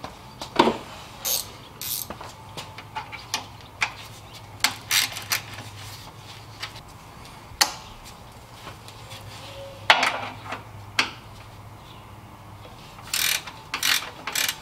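Hand socket ratchet clicking in short bursts as the bolts holding the condenser to the radiator are loosened, with a few sharp knocks of tool on metal and a quick run of ratcheting strokes near the end.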